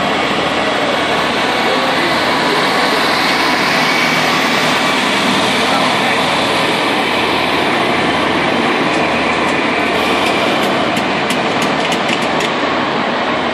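Zamboni ice resurfacer running steadily on the rink, its engine and machinery noise loudest as it passes close by. A quick run of faint, high clicks comes near the end.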